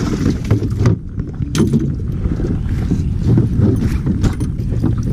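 Low wind rumble on the microphone, with a few sharp knocks against the aluminium boat.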